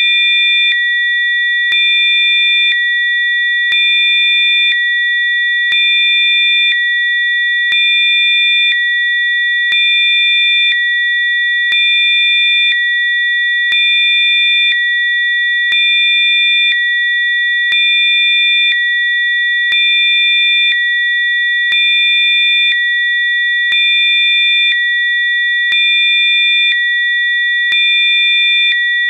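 Synthesized Rife frequency sine tones: several steady, high-pitched electronic tones held together, with a fainter lower tone switching on for about a second every two seconds, giving a slight regular pulse.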